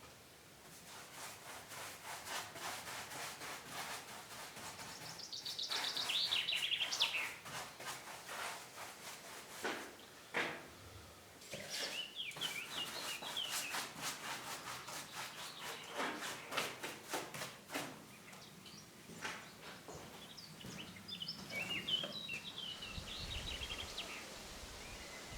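Repeated abrasive strokes on wood, like hand sanding, going on through most of the stretch, with birds chirping at times.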